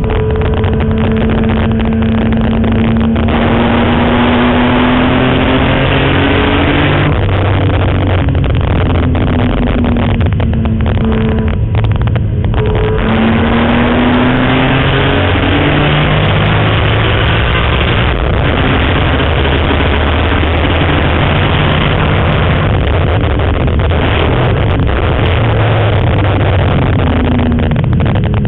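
BMW M3's engine heard from inside the cabin, lapping a race track hard. The revs climb and drop again and again through the gears and corners, over loud road and wind noise.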